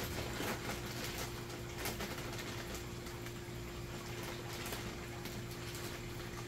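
A steady low hum with faint crinkling and ticking of a plastic fish shipping bag being handled.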